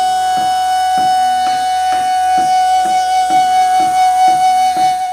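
Background music: one long held note over a steady drum beat of about two strokes a second, the note dipping down at the very end.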